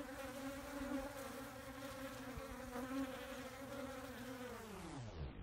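Honeybees buzzing steadily in a swarm around a sugar-syrup feeder, a low hum of many wingbeats as foragers come and go. Near the end the hum slides steeply down in pitch.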